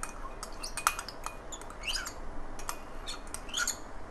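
Light clicks and scrapes of a spoon against a small bowl as saffron is spooned over rice in a cooking pot, with a few short high chirps, about two seconds in and again near the end.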